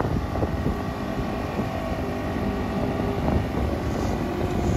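Wind buffeting the microphone over the steady running of the small motor that pushes a home-built pontoon boat along at cruising speed.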